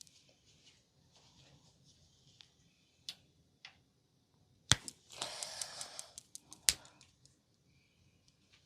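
Hand sounds of a head massage: faint rubbing, a few sharp clicks, and a rustling rub of about a second through hair between the two loudest clicks, a little under five seconds in and near seven seconds in.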